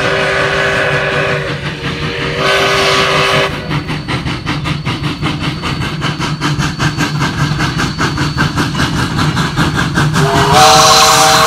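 Steam locomotive sounds. A two-note steam whistle blows, first fading about a second and a half in, then again briefly. A fast, even run of beats follows, about six a second. Near the end a louder chime whistle sounds several notes together.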